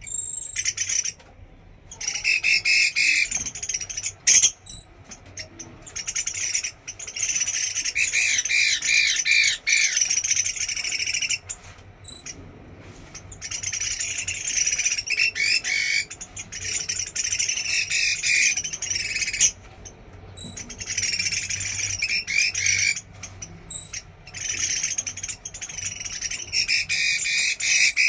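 Bạch mi (hwamei songbird) singing loud, varied, warbling phrases in long bouts, with brief pauses between them.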